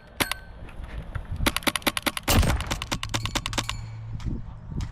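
Airsoft gun firing: a single shot near the start, then a rapid string of sharp clicking shots, about ten a second, for a couple of seconds midway, with one louder crack among them.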